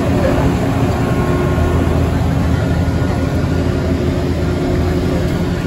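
Gondola lift station's drive machinery running, a steady low mechanical hum with several held tones.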